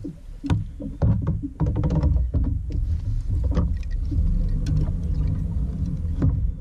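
Small fishing boat being moved into position: a low, uneven rumble with scattered knocks and bumps close to the camera.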